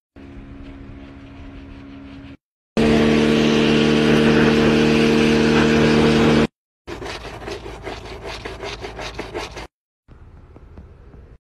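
Car-detailing work sounds, spliced with abrupt cuts. A bristle brush scrubs a soapy door jamb, then a pressure washer sprays hard and loud for about four seconds with its steady motor hum underneath. After that come quick, rapid scrubbing strokes, several a second.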